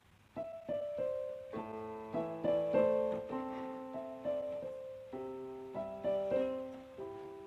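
Background piano music, a melody of struck notes over chords, starting about half a second in after a brief silence.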